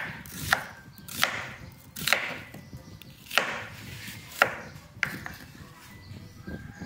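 Kitchen knife slicing through an onion into a wooden cutting board: about nine sharp cuts at an uneven pace, a second or less apart, some with a short rasp after the knock. The cuts stop about five seconds in.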